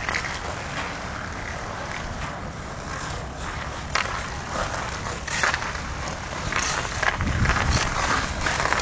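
Ice hockey skate blades scraping and carving on rink ice, with sharp clicks of a hockey stick striking the puck several times, more often in the second half as the skater stickhandles.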